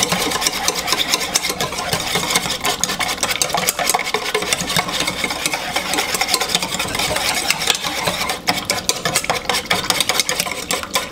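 Wire whisk beating a liquid barbecue-sauce mixture in a stainless steel mixing bowl: a rapid, continuous clatter and scrape of the wires against the metal, with some sloshing of the sauce.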